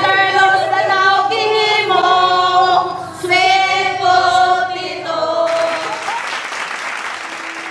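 A mixed group of men and women singing out together in unison. From about five and a half seconds in, the singing stops and gives way to clapping and cheering that fades away.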